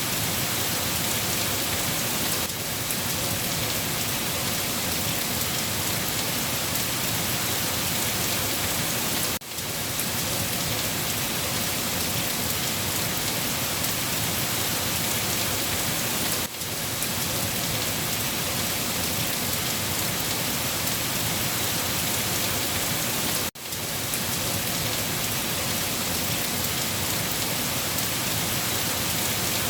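Steady heavy rain falling in an even, dense hiss. The sound dips sharply for a split second three times, about every seven seconds.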